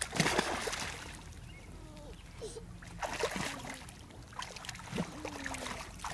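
A big splash as a child falls backwards into an above-ground pool. It is followed by water sloshing and a couple of smaller splashes as he floats and swims.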